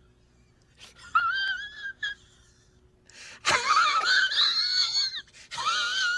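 High-pitched, wavering wheeze sound effect in three bursts, the middle one loudest and starting abruptly.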